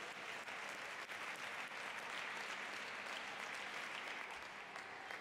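Audience clapping: a steady round of applause.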